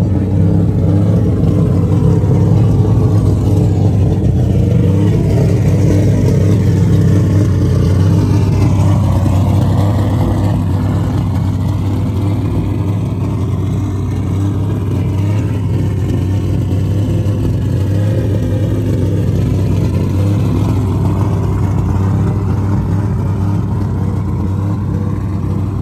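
Car engine running loudly and steadily with a deep, even low rumble, easing off slightly after about ten seconds.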